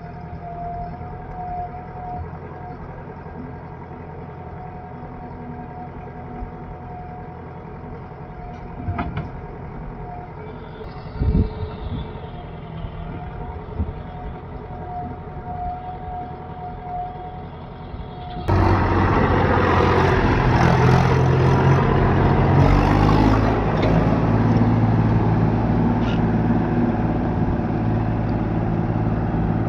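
Heavy diesel machinery running steadily, with a few short knocks. About eighteen seconds in, it cuts suddenly to a much louder, closer engine sound that runs on steadily.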